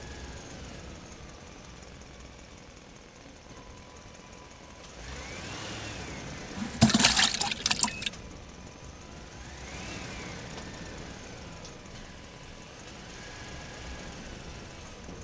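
Small electric motors of toy radio-controlled construction vehicles whining up and down in speed several times. About seven seconds in comes a loud clattering burst of sharp knocks lasting about a second.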